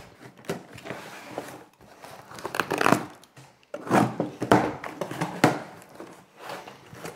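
Utility knife slitting the packing tape on a cardboard box in several separate scratchy strokes, with the cardboard flaps scraping and plastic packaging crinkling as the box is opened.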